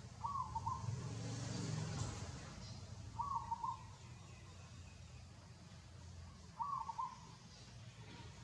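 A bird calling: a short, broken phrase repeated three times, about three seconds apart, over a steady low background hum, with a louder low rumble in the first couple of seconds.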